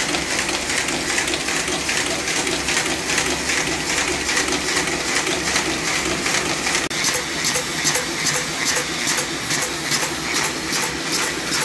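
Paper folding machine running steadily, its rollers, feeder and knife-fold unit giving a continuous mechanical whir with a fast, regular ticking as sheets pass through. The ticking becomes sharper after a brief drop about seven seconds in.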